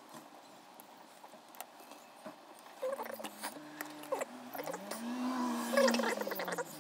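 Faint clicks and rustling as a brake caliper piston is handled and pushed into the caliper bore. From about three seconds in, a low hum joins them, rising and then falling in pitch, and the handling noise is loudest near the end.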